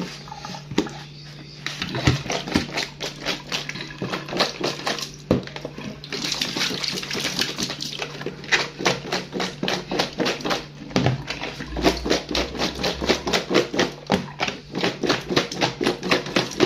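Peeled green bananas being washed by hand in a plastic basin of water in a steel sink: a rapid, irregular clatter of knocks as they are rubbed and jostled against the basin, with water sloshing and being tipped out into the sink.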